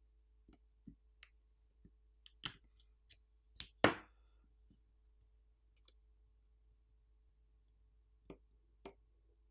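Scattered small clicks and taps of a metal spudger and hands working on a disassembled smartphone's frame and internal parts. A quick cluster comes about two to four seconds in, the sharpest click near four seconds, and two more clicks come near the end.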